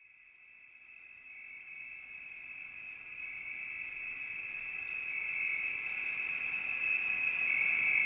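A steady, high-pitched, insect-like trill that fades in and grows steadily louder throughout.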